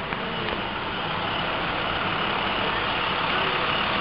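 Heavy truck engines idling steadily in stopped traffic, a constant rumble with a few faint ticks about a second in.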